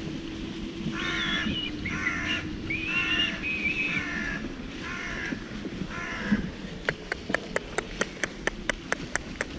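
Crows cawing, about six harsh caws over several seconds. Near the end, a quick run of sharp clicks follows, about five a second.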